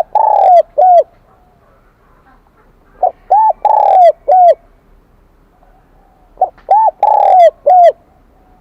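Spotted dove cooing in the high, ringing 'kim đồng' voice: three phrases about three seconds apart, each of short arched notes with one longer note.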